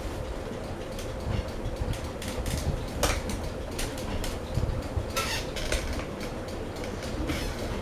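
Craftmade Phoenix ceiling fan running: a steady motor hum over a low rumble, with scattered clicks and ticks.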